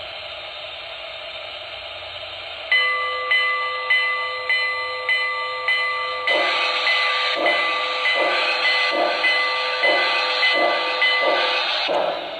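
Broadway Limited Paragon 2 sound decoder in an HO scale Pennsylvania Railroad 2-10-0 Decapod model, playing through the model's small speaker. It starts with a steady steam hiss. From about three seconds in a bell rings about every 0.6 seconds. From about six seconds in, evenly paced exhaust chuffs join as the locomotive gets under way.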